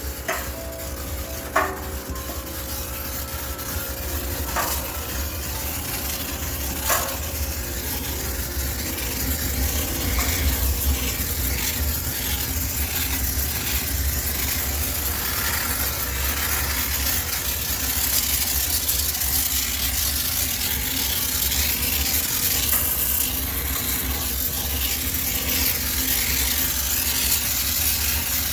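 High-pressure steam cleaner spraying into a washing machine to sterilise it: a steady hiss, with a few clicks in the first seconds and getting louder about ten seconds in.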